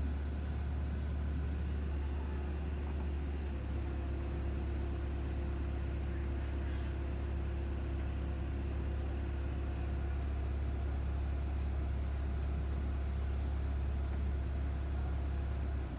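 Water-well drilling rig and its power generator running steadily with a loud, low, unchanging drone; a steady higher hum joins about four seconds in.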